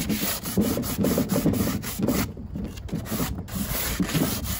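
Sandpaper rubbed by hand back and forth along the cut edge of a fiberglass-reinforced plastic (FRP) panel in repeated strokes, knocking off the burrs left from cutting.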